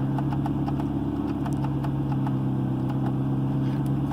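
McLaren MP4-12C's twin-turbo V8 idling steadily.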